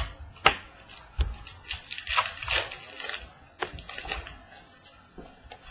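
Trading cards being handled and flipped: a run of sharp clicks and snaps, with a stretch of crisp rustling about two seconds in.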